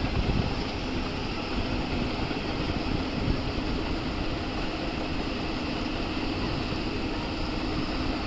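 Boat engine running steadily with a low rumble and a faint hum, over the rush of wind and river water.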